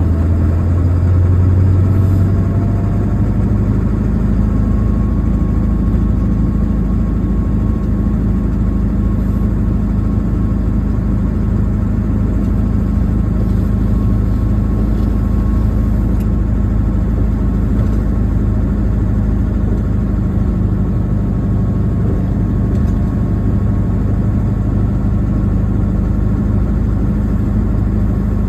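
Vehicle engine running steadily with a low hum, a little louder in the first few seconds.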